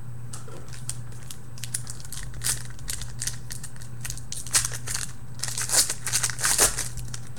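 Foil wrapper of a football trading-card pack crinkling and tearing as it is opened, the loudest crinkles about four and a half seconds in and again over the last couple of seconds. A steady low hum runs underneath.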